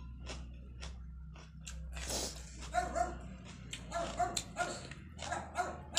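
A dog barking in a quick run of short, repeated barks starting about two seconds in. Before that come soft mouth clicks from eating.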